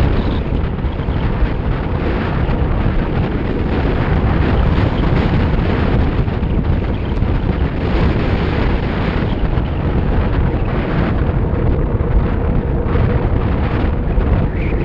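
Steady wind rush buffeting an action camera's microphone as a road bike descends at speed.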